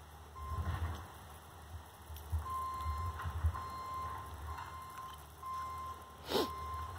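An electronic beep tone at one steady pitch, sounding on and off in long beeps of under a second each, over a low rumble. A sharp click about six seconds in.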